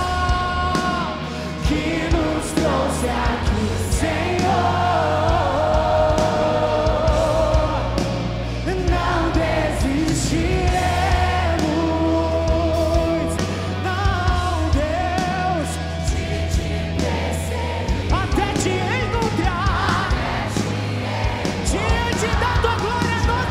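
Live worship band music with singing: a sung melody over sustained bass notes and regular drum strikes.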